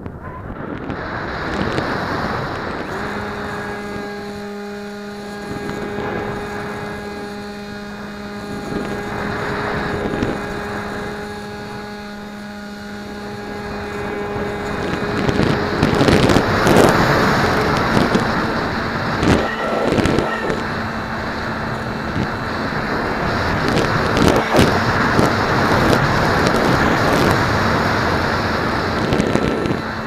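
Wind rushing over the onboard camera of a Multiplex Easy Star RC plane, with the steady hum of its brushless electric motor coming in about three seconds in. From about halfway through, the wind rush grows louder and gustier while the motor hum carries on at a slightly higher pitch.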